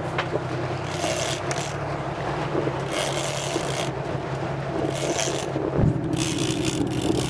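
Sportfishing boat's engine running steadily, with repeated rasping bursts from a fishing reel being worked as a hooked fish is fought.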